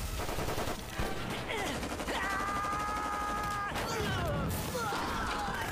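Battle sound effects from a film soundtrack: volleys of rifle fire and a crashing blast, mixed with dramatic background music.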